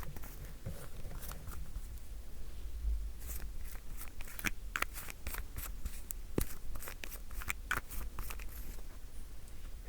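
Small crackles and clicks from an everyday object handled right at the microphone, coming irregularly and growing denser about a third of the way in.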